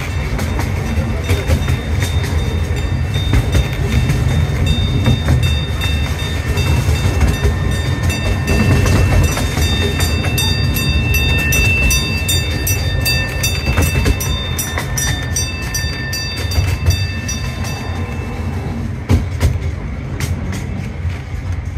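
Narrow-gauge zoo train's passenger cars rumbling and clattering along the track, heard from aboard. From about five seconds in a bell rings over it in repeated strokes, stopping a few seconds before the end.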